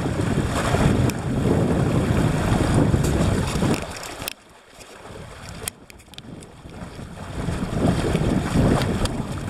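Wind buffeting the microphone and water rushing along the hull and outrigger float of a folding kayak under sail. The wind rumble drops away suddenly about four seconds in and builds back up near the end, with a few small clicks and splashes throughout.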